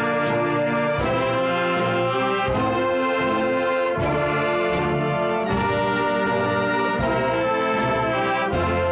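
Orchestral music with prominent brass playing sustained full chords, the chords changing about every second and a half, each with a sharp attack.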